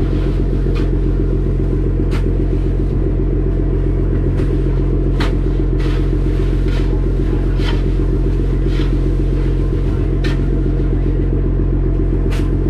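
Fishing boat's engine running with a steady drone, with short scrapes and crunches every second or two as crushed ice is scooped into a basin in the hold.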